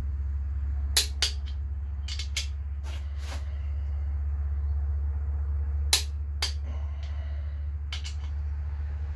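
Click-type torque wrench on the crankshaft main cap bolts of a GM 4.3 V6, giving sharp clicks, often in quick pairs, every second or few as bolts reach the 50 stage torque. A steady low hum runs underneath.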